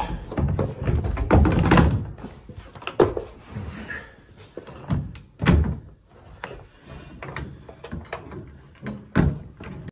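Irregular knocks, bumps and scrapes with a few louder thunks, as a Stuart Turner Showermate single-impeller shower pump is pushed and shuffled into a tight cavity behind a bathroom panel.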